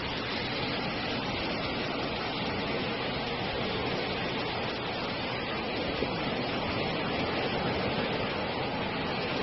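Steady rush of shallow surf washing up over wet sand at the water's edge.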